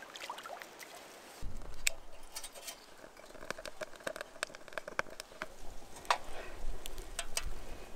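A small stick fire burning in a cylindrical wood-burning camp stove, starting about a second and a half in: a low rumble with scattered sharp crackles and clicks as sticks are fed into the metal stove.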